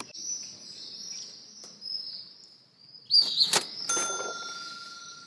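A sharp clatter about three seconds in, followed by a metallic ring that fades over about a second, over a steady high-pitched chirring in the background.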